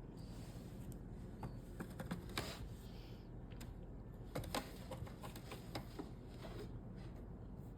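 Irregular light clicks and taps, several a second in places, over a faint steady low hum.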